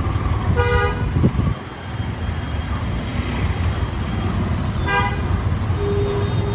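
Street traffic rumbling steadily, with short vehicle horn toots about a second in and again about five seconds in, and a longer held tone near the end.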